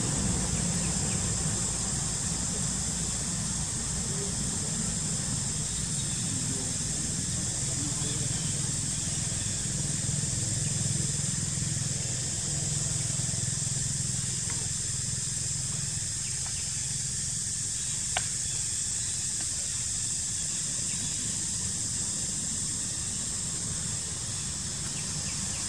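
Steady outdoor background noise: an even high hiss over a low rumble, with one sharp click about 18 seconds in.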